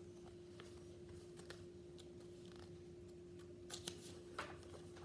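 Quiet room with a faint steady hum, and soft rustling and clicks of a picture-book page being handled and turned, loudest a little under four seconds in and again about half a second later.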